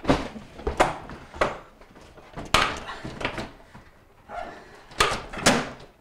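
Plastic freezer basket being fitted into a bottom-freezer drawer: a series of sharp knocks and clicks of plastic against the drawer frame and slide rails, with some scraping between them.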